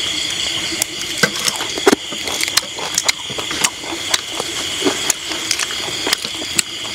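A steady chorus of night insects, with frequent irregular clicks and taps over it.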